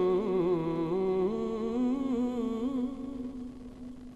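A man's unaccompanied voice singing a naat, drawing out a long wavering melismatic note that slides down at the start and fades away over the last second or so.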